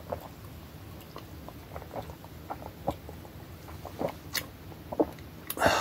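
A person drinking carbonated soda from a glass: a string of small gulps and wet mouth clicks roughly every half second, with a louder mouth sound near the end.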